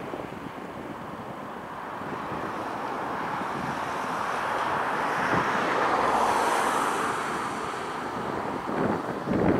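Boeing 737-800's CFM56-7B jet engines at takeoff thrust, heard from beside the runway as a broad rushing noise that swells, loudest a little past halfway with a faint high whine, as the airliner accelerates and lifts off. Wind buffets the microphone near the end.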